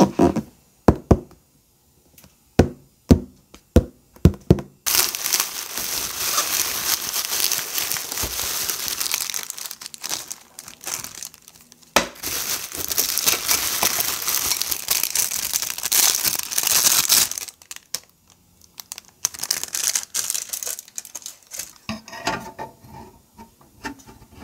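Unboxing noise. First come a handful of sharp cracks and tearing sounds as the cardboard box is opened. Then plastic packaging crinkles and rustles steadily for about twelve seconds, giving way to quieter handling sounds near the end.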